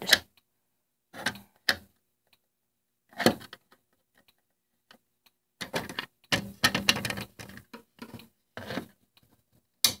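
Screwdriver tip working in the reset hole of a plastic fire alarm pull station to reset it. A few separate sharp clicks come first, then a longer run of quick clicking and rattling in the second half.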